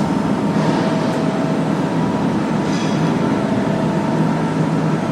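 Lotze CNC press brake's motor running steadily, a continuous hum with a few faint steady tones above it. There are faint light clicks about a second in and near three seconds.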